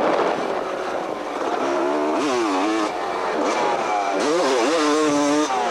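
250cc two-stroke motocross bike engine revving hard and dropping back over and over as the throttle is worked, its pitch climbing and falling, with sharp rises about two and four seconds in.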